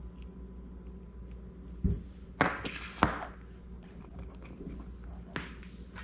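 Black Master Lock Model 90 trigger lock parts handled and set down on a hard tabletop: a few sharp knocks and clacks, the loudest about three seconds in.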